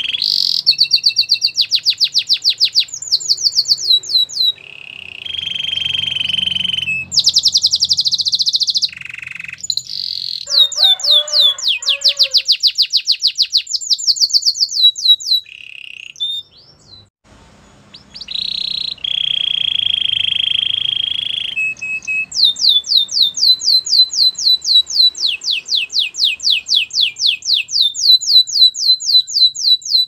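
White domestic canary singing: fast trills of repeated sharp notes alternating with held whistled notes, with a brief pause a little past the middle.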